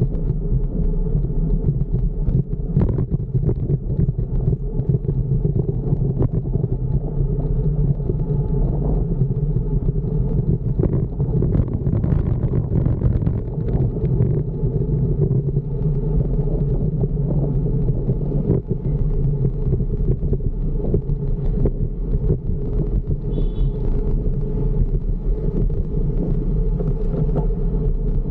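Steady low rumble of a fixed-gear bicycle ride: wind on the microphone and road noise, with scattered small knocks.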